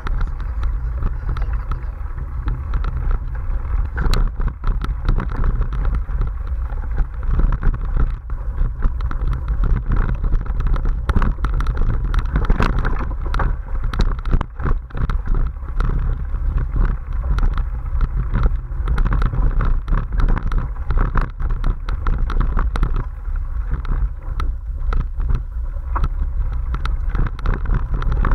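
Giant XTC 27.5 hardtail mountain bike riding over a bumpy forest dirt trail: a steady low rumble with dense, irregular clicks and rattles as it jolts over the ground.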